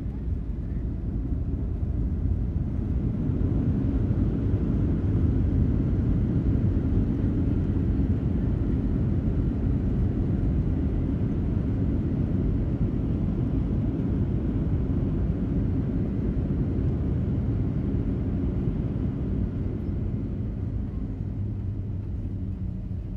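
Boeing 737-900 on its landing rollout, heard from inside the cabin: a loud low rumble builds over the first few seconds as the jet decelerates on the runway, holds, then slowly eases as it slows. A steady hum comes in near the end.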